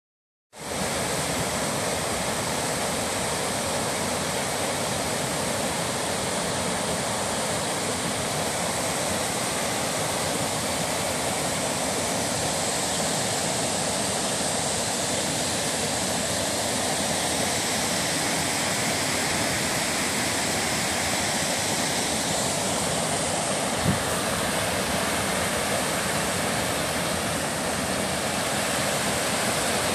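Creek water cascading over a series of low rock ledges in a small stepped waterfall: a continuous, steady rushing. A single brief low bump sounds once, late on.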